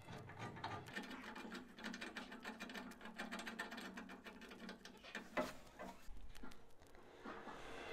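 Faint, rapid small clicks and metal rattles from hands working bolts into the wheelbarrow's steel handle bracket and plywood crossbar, with a faint steady hum through the middle.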